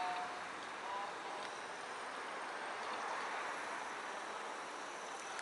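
Steady outdoor background hiss, with a couple of faint brief tones near the start.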